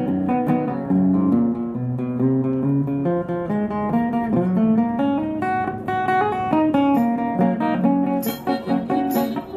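Acoustic guitar picking and strumming a country-style instrumental break, a run of single notes over chords, with a few sharp high jangles about eight seconds in.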